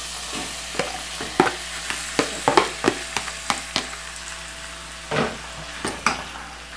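Diced raw chicken breast sizzling as it goes into melted butter in a hot saucepan, while a metal spoon scrapes and knocks the pieces out of a bowl with a run of sharp clicks over the first four seconds. A louder scrape comes about five seconds in.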